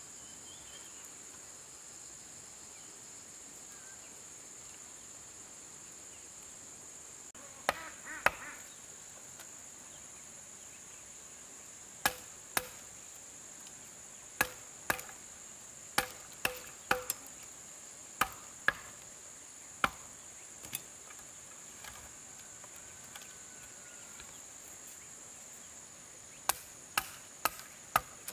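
Sharp blows of a hand tool striking wood, in uneven bursts of a few strikes with pauses between, over a steady high drone of insects.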